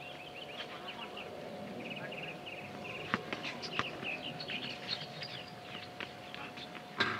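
Birds chirping steadily, with scattered sharp knocks of a basketball bouncing on the court and a louder knock about seven seconds in, over a faint steady hum.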